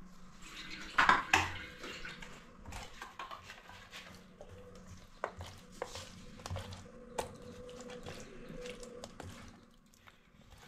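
A stainless steel plate clanks twice about a second in. Then a hand mixes pieces of spiny eel in wet masala in the steel plate, with scattered light clinks and scrapes against the metal.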